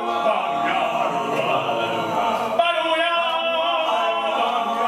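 Small male a cappella vocal group singing in harmony, several voices holding chords together, with no instruments. The sound grows fuller about two and a half seconds in.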